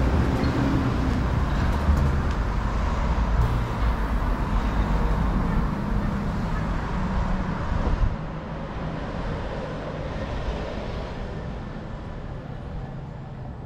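City street traffic noise with a heavy low rumble of vehicles that drops off suddenly about eight seconds in, then slowly fades.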